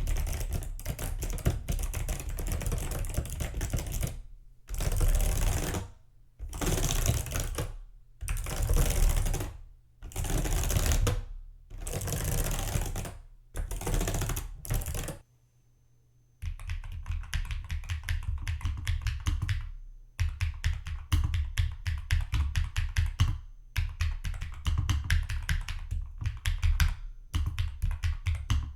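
Typing on a Retro 87 mechanical keyboard: rapid keystrokes, breaking into short runs with brief pauses in the first half. After about a second of near silence in the middle, typing goes on with an IQUNIX mechanical keyboard, a steady run of fast keystrokes.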